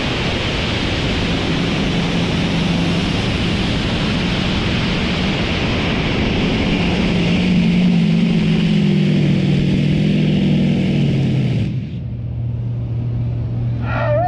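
A modified pulling tractor's engine runs loud with a wavering pitch, which slides down toward the end of the run. About twelve seconds in, the sound cuts off abruptly to a quieter, steady low engine drone.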